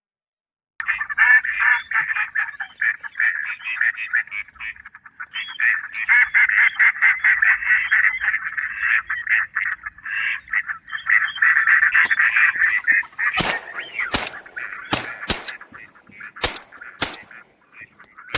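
Ducks quacking rapidly and continuously, a dense run of calls that thins out in the last few seconds, when several sharp clicks cut through.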